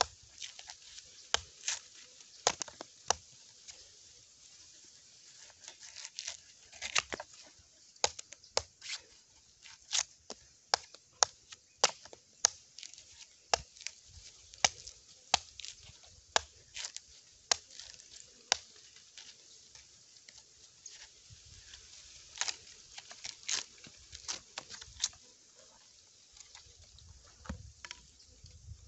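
A large knife chopping and shaving the husk off a green coconut resting on a wooden stump: a long run of sharp, irregular strikes with short pauses, most frequent in the middle and thinning out near the end.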